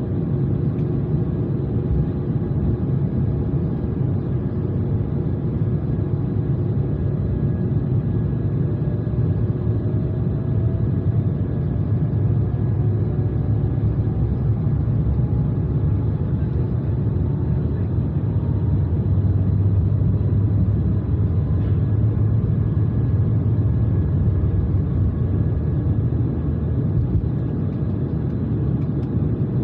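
Airbus A220 cabin noise: a steady low rumble of the jet engines and airflow heard from inside the passenger cabin, with a faint tone slowly rising in pitch midway through.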